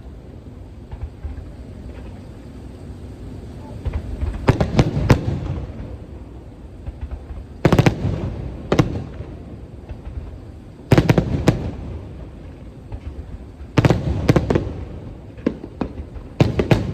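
Aerial firework shells bursting in a series of loud bangs, coming in clusters every few seconds with a low rumble between.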